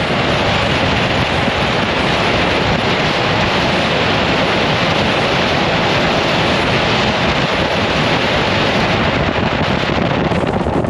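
Loud, steady rush of wind over the microphone on a Honda GoldWing GL1800 motorcycle moving at motorway speed, mixed with road noise.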